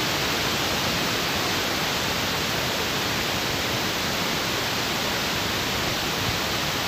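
A steady, even hiss that holds the same level throughout, with no distinct knocks, bubbles or stirring standing out above it.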